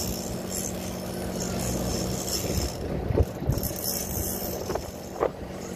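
Boat engine idling steadily under the rush of wind and sea, with a few low knocks about three seconds in and a short sharper knock near the end.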